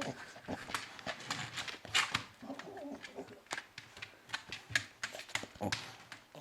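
American Cocker Spaniel snoring and snuffling in its sleep, soft irregular sounds mixed with scattered small clicks.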